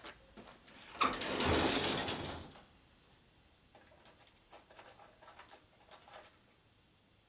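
A metal tool chest drawer sliding open on its runners for about a second and a half, then light clicks and clinks of tools being sorted through in the drawer.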